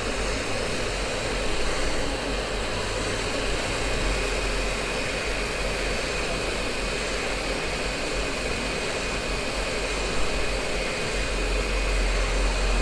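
Quick 858D hot air rework station blowing a steady rush of hot air from the fan in its handpiece, with a thin steady whine over it, as it heats a flux-coated SMD chip to desolder it.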